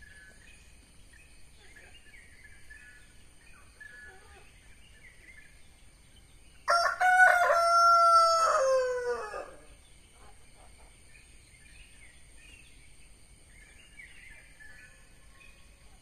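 A rooster crows once: a loud call of about three seconds, held level and then falling away at the end. Faint chirping of small birds runs underneath.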